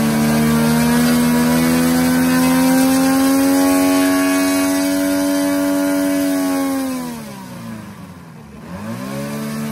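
The Extra 330 LX's DA-200 four-cylinder boxer two-stroke gas engine running on the ground, its revs climbing slowly and then holding steady. About seven seconds in, the revs fall steeply to a low point and then climb back to a steady, lower speed near the end.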